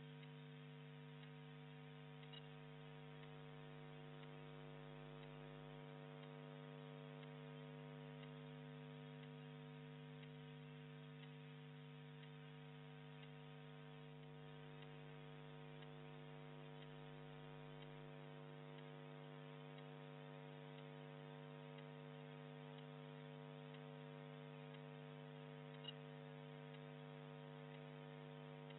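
Faint, steady electrical hum: a low tone with a stack of higher overtones that does not change, and two tiny ticks, one about two seconds in and one near the end.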